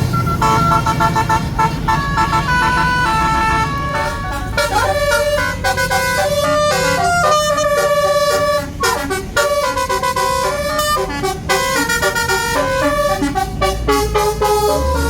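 A basuri telolet horn, the multi-trumpet musical air horn fitted to a tour bus, playing a fast melody note after note. The bus's engine runs underneath.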